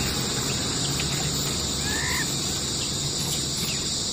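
Insects droning steadily in a high-pitched chorus, with one short chirping call about two seconds in.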